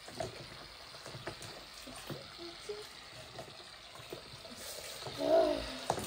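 Wet slime being stirred and squished by hand in a bucket, giving a steady run of small crackling, squishing sounds. Near the end a person gives a short hum.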